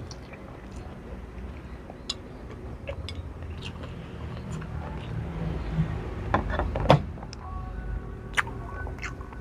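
A person chewing a mouthful of fried noodles, with scattered smacking clicks and a few sharper clicks about six to seven seconds in, over a steady low rumble.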